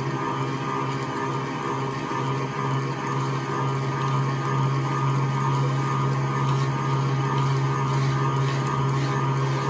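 Electric stand mixer motor running steadily, beating a banana, egg and butter cake batter, with a constant hum.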